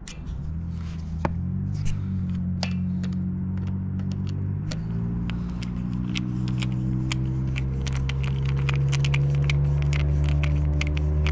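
Background music of sustained low notes that change in steps and slowly swell, over scattered light metallic clicks of a screwdriver working a carburetor clamp.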